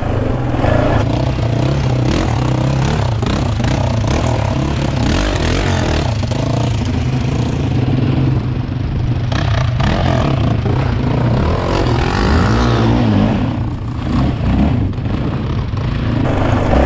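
Sport quad engine running under throttle, its pitch rising and falling a little as the throttle changes, with a brief drop in level about two-thirds of the way through.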